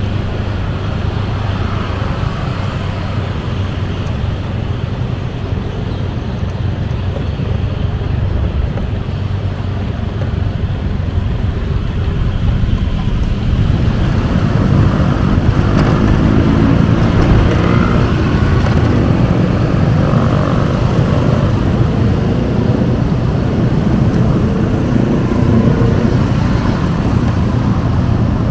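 Busy city road traffic: cars and motorcycles running past in a steady rumble. About halfway through it gets louder as engines pass close, their pitch sliding up and down.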